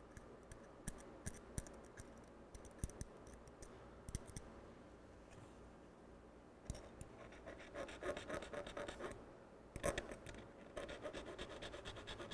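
Small file scraping battery corrosion off a TV remote control's metal battery contact: faint scattered scratches and clicks at first, then, from about seven seconds in, quick repeated filing strokes in two spells.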